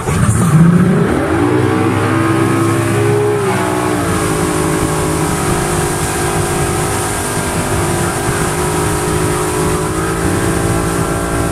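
MasterCraft Barefoot 200 ski boat's inboard engine revving up hard to pull a wakeboarder out of the water. Its pitch climbs over the first second or two, eases slightly about four seconds in, then holds steady at towing speed.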